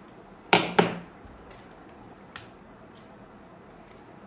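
Xiaomi Mi 10W wireless charging pad set down on the desk with two sharp knocks about a quarter second apart, followed by a few light clicks as its USB cable and plug are handled.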